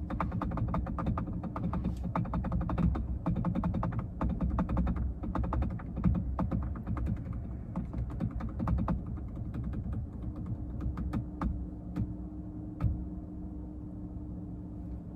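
Name-picker spinning wheel ticking as it spins: rapid clicks at first that slow and space out as the wheel coasts down, the last few ticks near the end before it stops. A low steady hum lies under it.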